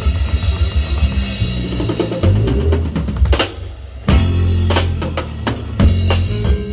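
Live conjunto band playing a polka, the drum kit prominent with kick and snare over the bass. Just before four seconds in, the music drops briefly, then comes back on a held low note with several cymbal crashes.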